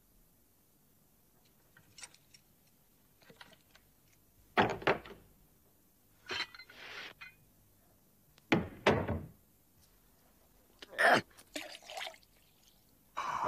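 A few separate knocks and thunks from a door and a tea tray with its cup and pot. Near the end comes the splash of tea being poured out of a teapot.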